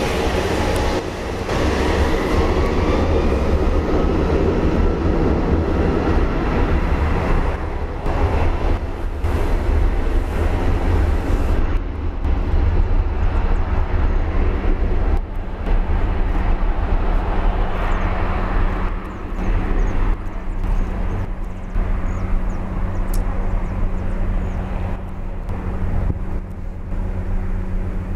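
Four-engined Airbus A340-600 jet engines running at high power for takeoff: a loud, continuous low rumble, with a high turbine whine that rises in the first few seconds.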